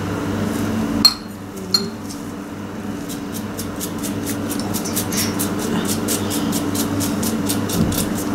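Black seeds being sprinkled by hand over egg-washed dough on baking paper, a run of light, quick ticks several a second from about three seconds in. Two sharp glassy clinks come about a second in, over a steady low hum.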